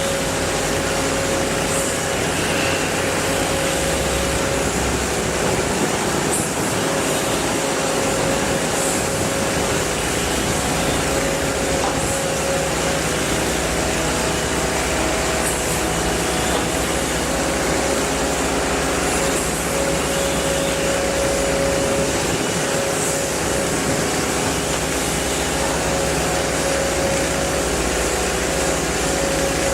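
Steady machine noise with a constant mid-pitched hum, unchanging throughout.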